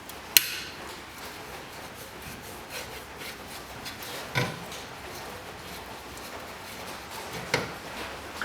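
Three short, sharp knocks a few seconds apart over a faint steady hiss, the first the loudest.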